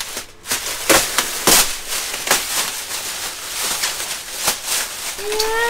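Clear plastic protective film crinkling and crackling in irregular sharp rustles as it is peeled and pulled off a new shower pan. A short rising vocal sound comes near the end.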